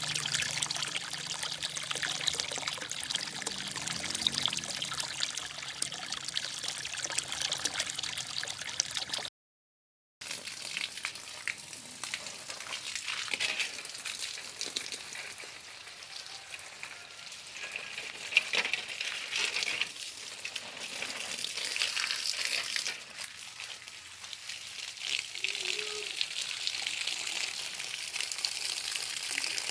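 Hissing, crackling noise like running water, steady apart from a sudden gap of about a second of silence near a third of the way through, after which it goes on with scattered sharp crackles.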